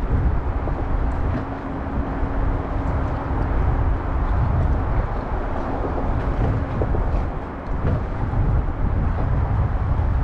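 Wind rumbling on the microphone, with a faint steady hum through most of it that stops about eight seconds in, and a few light clicks.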